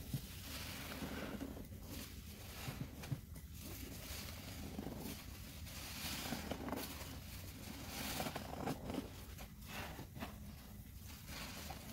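Dense foam sponges squeezed over and over in thick soapy suds by gloved hands: wet squelching and crackling of foam, one squeeze about every second.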